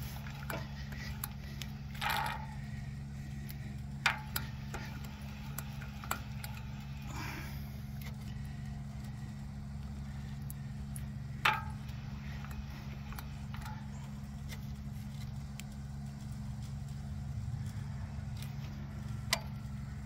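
An engine running steadily as a low, even hum, with a few short clicks and taps of metal being handled.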